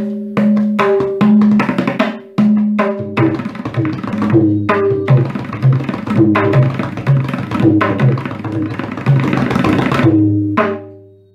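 A tabla pair (dayan and bayan) played fast, most likely a kaida in teentaal: rapid ringing strokes on the tuned right-hand drum. Deep bass strokes on the left-hand bayan join about three seconds in, their pitch bending. The playing ends on a final stroke that rings out and fades.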